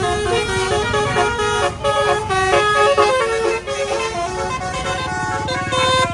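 Tour bus musical horn (telolet/basuri type) playing a quick tune: several horn notes at once, changing pitch every fraction of a second.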